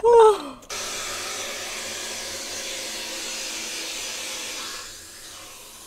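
A woman's brief excited shout, then a steady rushing hiss of a household water softener regenerating, water running through it to drain. The rush drops to a quieter level about five seconds in.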